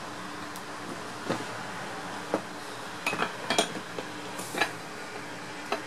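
Metal clinks and knocks from the cast end cover and finned housing of a 0.75 kW water-pump motor being fitted back together by hand. The knocks are irregular, with several close together about three seconds in.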